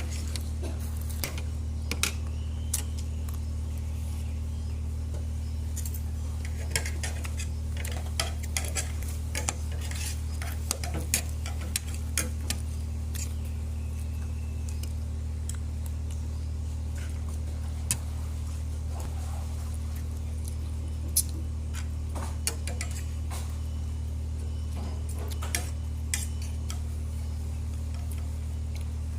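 Scattered clinks and taps of eating utensils against dishes during a meal of shrimp and rice, over a steady low hum.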